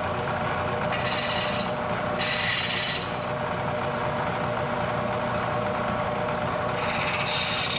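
Vertical milling machine spindle running steadily while a cutter is fed by hand into the bolt holes of a cast-iron manifold flange. Three short spells of higher-pitched cutting noise come about a second in, around two seconds in, and near the end, as the tool bites into the iron.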